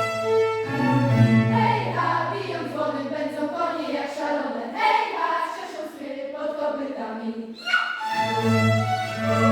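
Live classical music from a bowed-string ensemble of violins and cello. Held chords over a low bass give way to a higher, moving passage with vibrato while the bass drops out. A full chord with the bass comes back about 8 seconds in.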